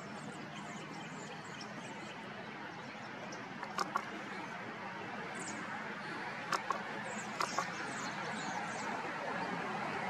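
A steady wash of outdoor background noise, slowly growing louder, with faint short high chirps of birds calling and a few sharp clicks, mostly in quick pairs, about four, six and a half and seven and a half seconds in.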